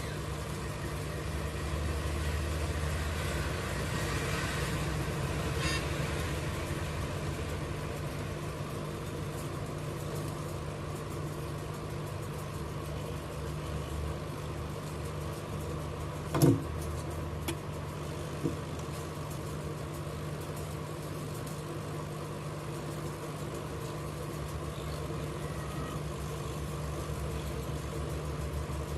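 Hot air rework station blowing steadily with a fan hum, heating a phone's charging socket to reflow its solder onto the motherboard. A sharp click comes about sixteen seconds in, with two fainter clicks after it.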